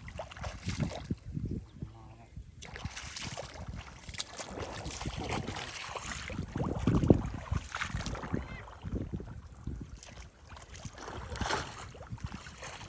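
Shallow water sloshing and splashing in irregular bursts, loudest about seven seconds in.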